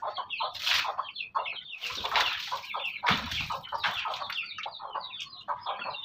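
Chickens clucking in a rapid run of short calls. Several splashes as water is thrown by hand from a metal bowl onto an earth floor.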